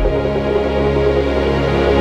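Background music: an ambient electronic score of held notes over a sustained deep bass.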